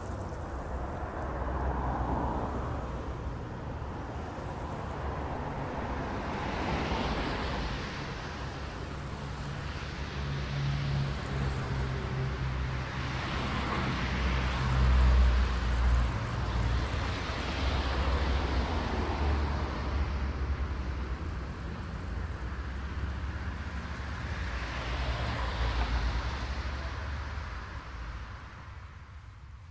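Road traffic: cars passing one after another, each a swelling and fading rush of tyre and engine noise over a steady low rumble, the loudest pass about halfway through.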